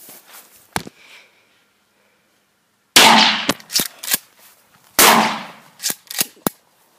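Two shotgun blasts about two seconds apart, each dying away over most of a second and followed by a few sharp clicks.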